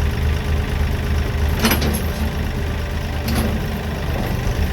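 Tractor engine idling steadily, with two sharp metallic clinks about a second and a half apart.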